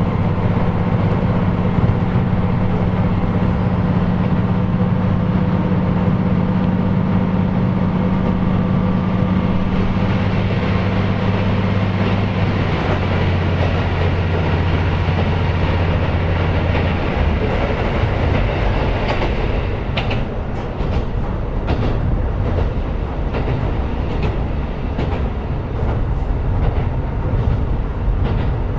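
KiHa 125 diesel railcar running. Its diesel engine hums steadily under power, shifts about twelve seconds in and drops out about five seconds later. Wheel and rail rumble with a run of clicks from the track carries on.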